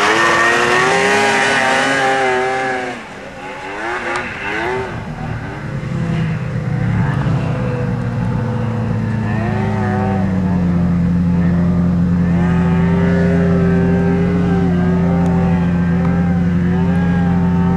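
Snowmobile engines revving, their pitch rising and falling, then settling into a steady high drone from about ten seconds in while another engine note still wavers above it.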